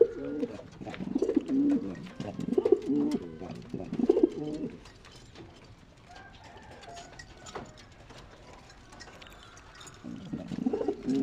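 Male domestic pigeon cooing in repeated low, warbling phrases, the courtship cooing of a cock. The calls stop after about five seconds, leaving a quieter spell with faint clicks, and start again near the end.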